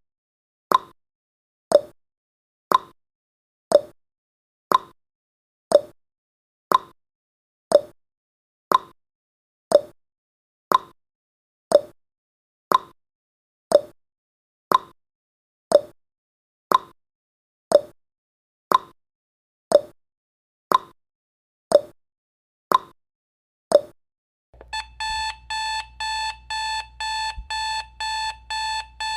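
Clock-tick sound effect ticking about once a second as the countdown runs out, then an alarm-clock-style beeping alarm starts, pulsing rapidly, when the timer reaches zero near the end.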